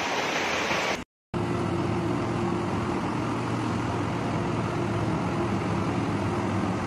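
Fast muddy floodwater rushing, for about a second. After a brief dropout comes a steady rushing noise with a low hum underneath.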